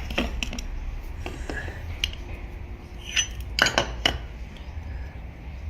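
Scattered metallic clinks and knocks of metal parts and tools being handled, with a cluster of sharper knocks about three and a half seconds in, over a low steady hum.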